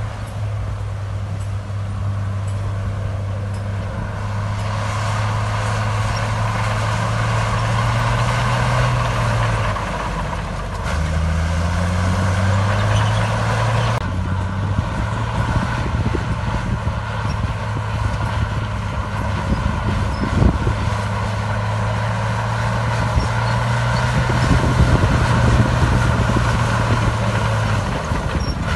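Diesel engine of heavy earthmoving machinery running steadily, its pitch dipping and rising a few times, with a few knocks in the second half.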